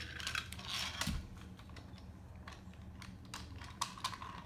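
Wooden toy train and wooden track pieces being handled, giving light irregular clicks and taps.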